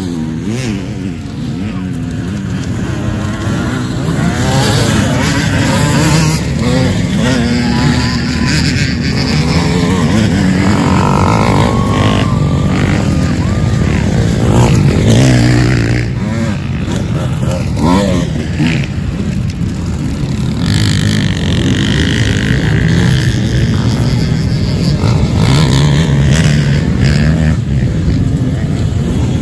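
A pack of off-road dirt bikes accelerating hard from a mass start and riding past, several engines revving together, their pitch rising and falling as the riders go by.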